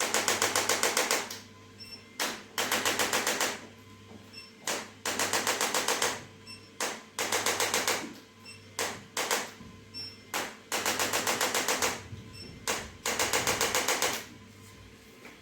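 Handheld percussive device, likely a massage gun or an electric adjusting instrument, tapping in bursts of about a second at roughly ten strokes a second. The bursts repeat every couple of seconds, with a few single taps in between.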